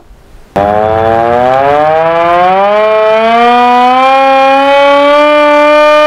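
Hand-cranked civil defence siren starting up about half a second in, its wail rising steadily in pitch as it is cranked up to speed.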